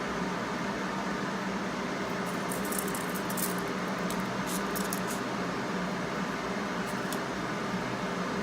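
Steady fan hum with no change in level, with a few faint light clicks between about two and five seconds in and again near seven seconds.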